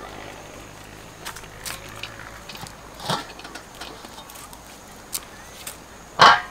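Footsteps crunching on loose river pebbles, with light knocks from handling things and one much louder clatter near the end.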